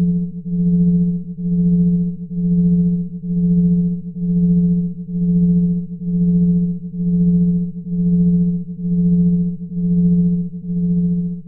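Sonification of a brown dwarf's signal: a low electronic hum that swells and fades in even pulses, a little more than once a second.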